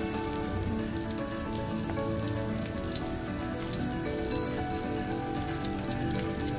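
Cornflour-coated brinjal (eggplant) slices sizzling and crackling in hot oil in a pan as the pieces go in one at a time. Background music with held notes plays throughout.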